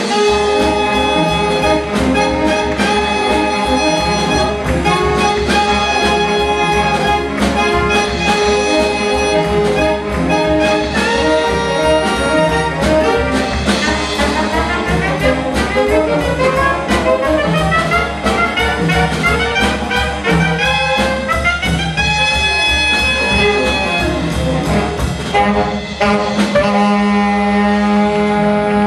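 Saxophone ensemble with drum kit playing a lively piece over a steady beat, ending on a long held chord near the end.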